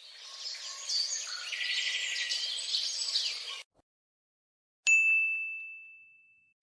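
Edited-in sound effects: about three and a half seconds of high-pitched chirping that cuts off abruptly, then after a second of silence a single bright ding that rings out and fades away.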